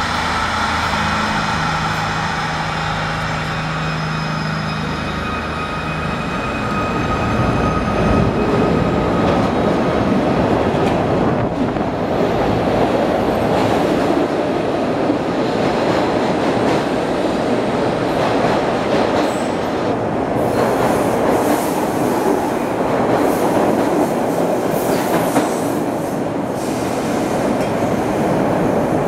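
A Kawasaki B-IV electric subway train on the Broad Street Subway running through an underground station. The first few seconds hold a steady whine, then a louder, dense rumble and rattle of the steel wheels on the rails as the cars pass close by, with sharp clicks and squeals in the later part.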